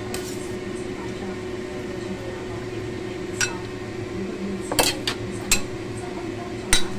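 A metal ladle clinking against a stainless steel pot and bowl, with several sharp clinks, most of them in the second half. A steady low hum runs underneath.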